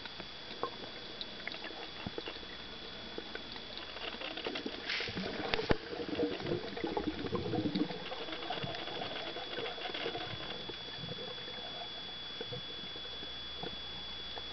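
Underwater sound picked up by a camera in a waterproof housing: scattered small clicks and crackles over a steady high-pitched electronic whine. A louder stretch of muffled rumbling and clicking comes about four to eight seconds in, then settles back.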